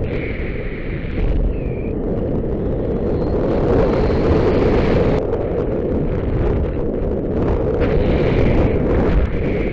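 Strong wind rushing and buffeting over a skydiver's camera microphone during the descent: a loud, steady, rough rush of air.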